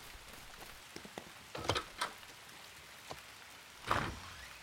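Steady patter of rain, with a few short knocks or thuds about a couple of seconds in and a louder one near the end.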